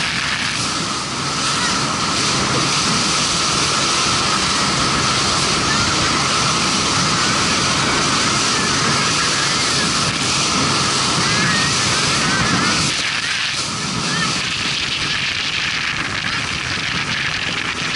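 Motorboat running at speed across open water: a steady noise of engine, hull on the water and wind on the microphone, with a steady high whine underneath. The level dips briefly about thirteen seconds in.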